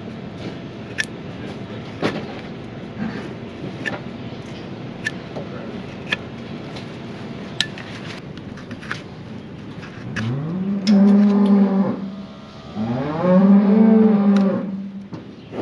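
A cow mooing twice in the second half, two long calls that each rise in pitch and then hold steady. Scattered sharp clicks run throughout.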